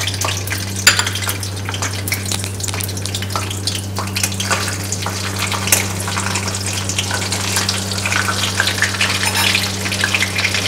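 Cumin seeds sizzling and crackling in hot ghee in a steel kadhai as they roast for a tempering, with a spatula stirring through them and occasional sharp clicks. A steady low hum runs underneath.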